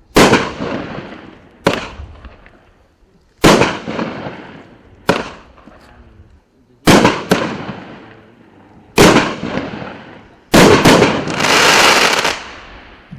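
A 200-gram consumer fireworks cake firing, one sharp bang about every one and a half to two seconds, each with a fading tail. Near the end, a quick cluster of shots runs into a longer, denser burst of about two seconds.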